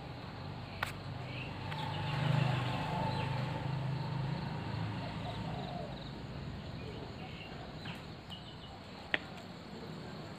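Rural outdoor ambience of birds chirping and insects, with a low hum that swells and fades in the first half and two sharp clicks, one near the start and one near the end.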